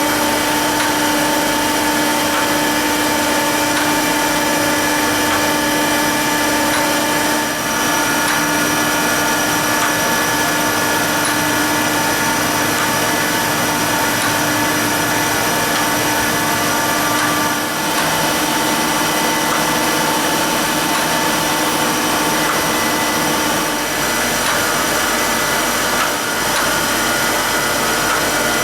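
Jones & Shipman 1400L surface grinder running steadily: a constant machine whine with several held tones over an even hiss.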